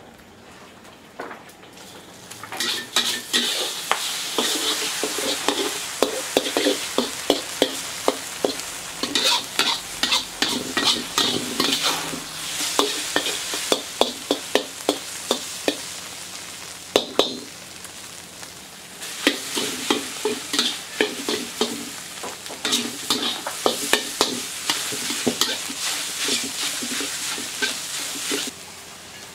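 Eggs sizzling in a wok over a high flame, while a metal spatula scrapes and knocks against the wok with many quick clicks as they are stirred. It starts about two seconds in and eases off briefly about halfway through.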